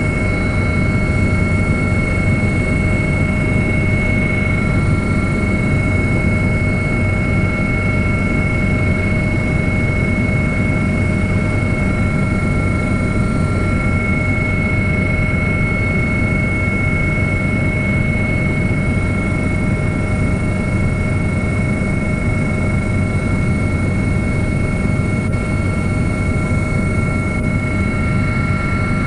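Helicopter running steadily: a loud low rumble with several constant whining tones above it, holding unchanged throughout.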